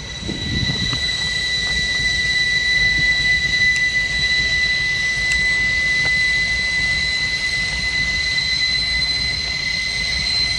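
Rail-yard machinery running: a steady high-pitched whine over a low rumble.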